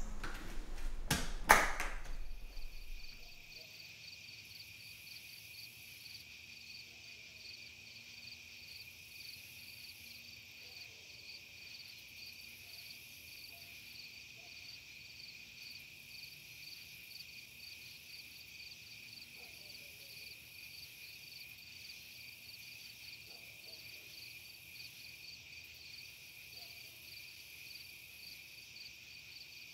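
Two sharp knocks about a second in, then a steady chorus of night insects: one constant high trill with a faster pulsing trill above it.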